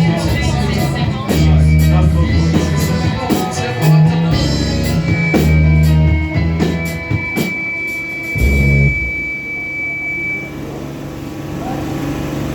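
Live worship band music with a drum kit and bass playing a steady beat; the drums and bass stop about nine seconds in, leaving a quieter held chord.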